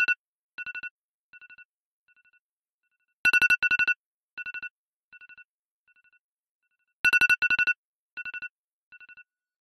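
Electronic ringtone-like trill: a rapid two-note ringing that comes back three times, about every three and a half seconds, each time followed by fainter and fainter repeats like an echo.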